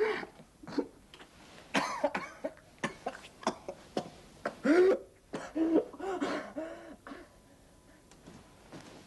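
A young man coughing, hacking and moaning in short irregular fits, the loudest about five seconds in, going quiet near the end.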